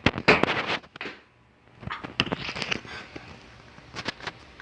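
Rustling and clicking handling noises close to the microphone, in short clusters with a brief lull about a second in, as clothing and accessories are handled in front of the camera.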